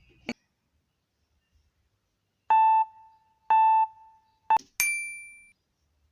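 Electronic beeps counting down: two steady mid-pitched beeps about a second apart, a clipped third one, then a higher chime that rings and fades.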